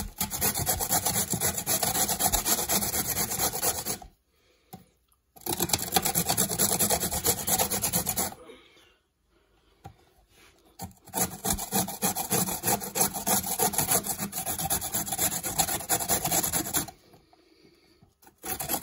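A carrot being grated by hand on a flat stainless-steel grater: rapid back-and-forth rasping strokes in three long spells, with short pauses about four and eight seconds in and again near the end.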